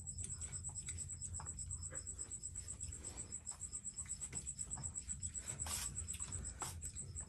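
A cricket chirping: a steady run of quick, even, high-pitched pulses, several a second. Faint scattered clinks of spoons against steel plates are heard with it.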